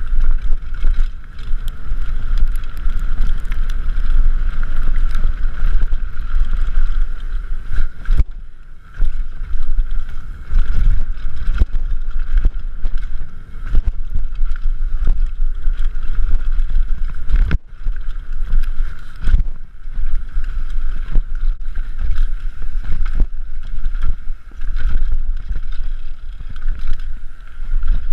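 Wind buffeting a moving camera's microphone on a mountain bike ride, with frequent knocks and rattles from the rough trail and a steady high hum throughout.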